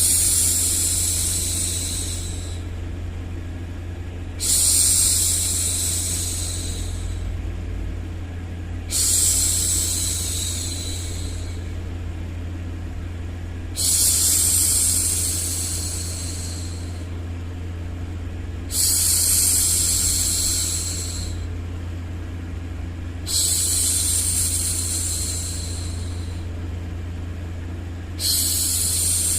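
A woman's long hushing "shhh", repeated seven times at a slow, even pace about every four and a half seconds. Each one lasts about two and a half seconds and trails off, over a steady low hum.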